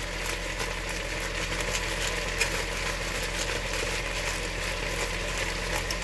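Cabbage and celery sizzling steadily in a pan on medium heat, with the faint gritty clicking of a salt grinder being twisted over it. A steady low hum sits underneath.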